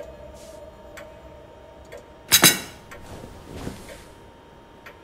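A ceramic plate set down on a wooden table: a sharp clatter with a short ring about two and a half seconds in, then a softer knock about a second later.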